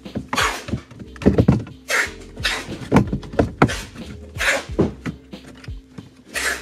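Background music with a steady beat, its bass notes held and punctuated by low drum hits.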